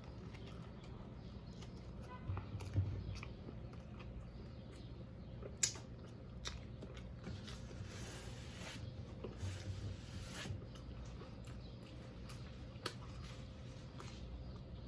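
Close-miked chewing and biting of a fried whiting sandwich, with scattered wet mouth clicks and smacks.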